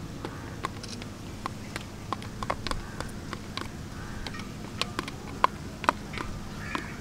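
A metal spoon scraping and tapping inside a plastic tub, scooping out ginger-garlic paste: irregular light clicks and taps, the sharpest two about five and a half and six seconds in, over a steady low hum.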